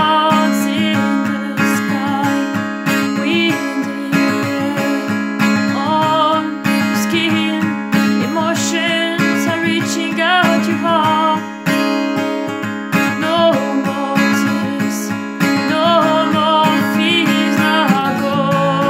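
Music: an acoustic guitar strumming chords steadily, with wavering higher notes above the chords.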